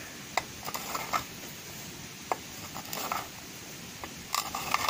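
Tip of a freshly hardened, untempered steel knife blade scraped across a glass bottle in a few short strokes, with a quick run of scrapes near the end. The blade bites and scratches the glass, the sign that its hardness after quenching is right.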